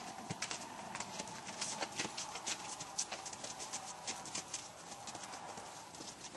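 Hoofbeats of a Quarter Horse gelding walking on snow-covered ground: sharp, irregular clops and crunches, several a second.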